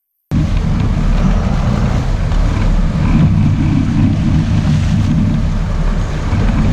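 Sport-fishing boat's engines running under heavy wind rumble on the microphone, cutting in abruptly a moment in.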